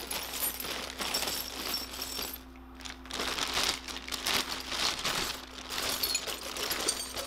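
A hand rummaging through a clear plastic bag of freshly plated metal nuts and bolts: the plastic crinkles while the small parts clink and rattle together, with a brief lull about two and a half seconds in.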